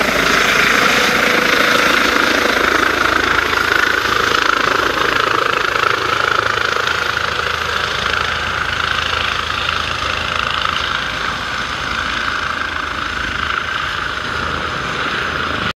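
Helicopter flying low overhead and moving away, a steady rotor and engine noise that slowly fades.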